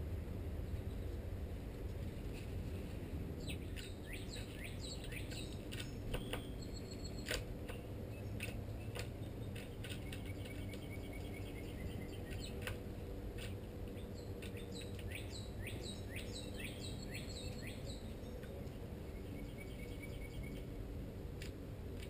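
Small songbirds chirping in bursts of quick, falling notes, starting about four seconds in and coming again around ten seconds and for several seconds after the midpoint, with a few sharp clicks in between and a steady low background rumble.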